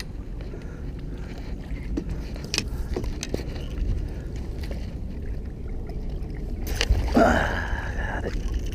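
Water splashing and sloshing against the side of a boat as a large catfish is worked to the surface, over a steady low rumble, with small knocks. About seven seconds in there is a loud knock and then a short strained grunt from a man.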